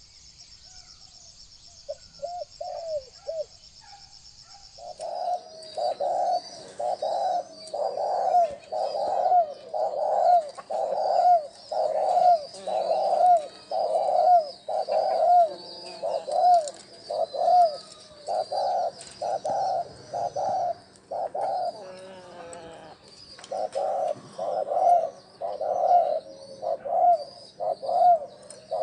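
Spotted dove cooing: a few soft coos, then from about five seconds in a fast, unbroken run of short coos, roughly two a second. This is the excited bowing coo used as a lure call for wild doves. Small birds chirp faintly above it.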